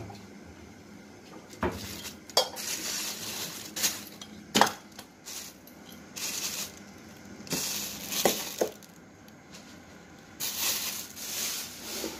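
Kitchen handling sounds: a stainless-steel bowl knocking and clinking several times as raw meat is put into it, with bouts of plastic bag rustling in between.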